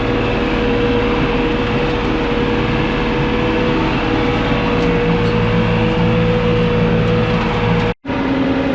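Tractor engine running steadily, heard from inside the cab, with a steady whine over the low engine drone. The sound cuts out abruptly for an instant near the end.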